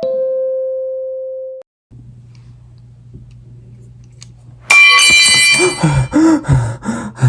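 A two-note doorbell-style chime: its second, lower note rings and fades out about a second and a half in. A low steady hum follows, and about two seconds before the end a sudden loud sound with ringing tones starts, followed by a pulsing series of voice-like sounds.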